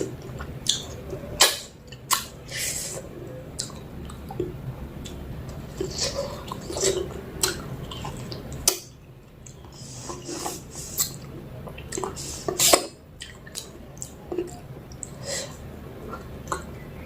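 Close-up wet chewing and mouth smacking while eating mutton curry with rice, with irregular sharp clicks every second or so.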